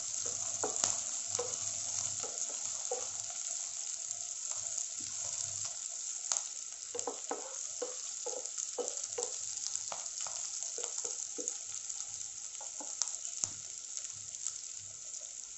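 Sliced onions sizzling in hot mustard oil in a nonstick kadhai. A wooden spatula stirs them with frequent short scraping strokes against the pan.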